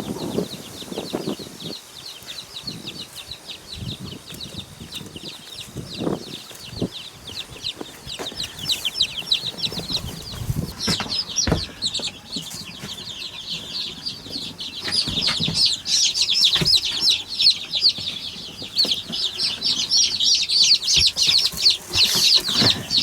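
A brood of few-days-old chicks peeping steadily in high, rapid cheeps, the chorus growing louder and denser about halfway through, with a few knocks of handling mixed in.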